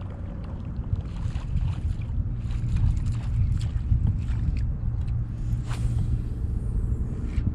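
A fishing boat under way: its outboard motor runs steadily beneath a rush of water and wind, with repeated knocks as the hull slaps on the waves.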